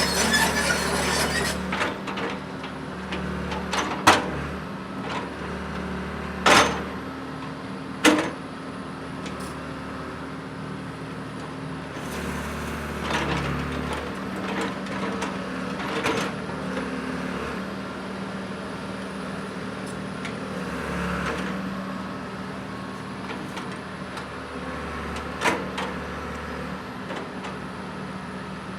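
John Deere 490E excavator's diesel engine running steadily, with a few short sharp clanks from the machine, the loudest about four, six and a half and eight seconds in.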